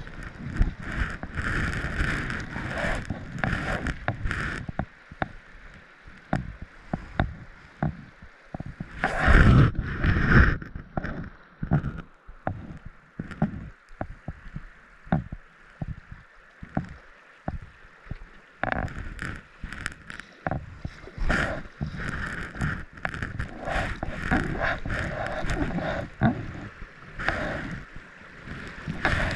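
Kayak paddling down a shallow river: paddle blades dipping and splashing, with water rushing and sloshing against the hull and many small clicks and knocks. The rush of water is louder at the start and again through the last third, as the kayak runs riffles, and quieter in the calm middle stretch, with a brief loud rush about a third of the way in.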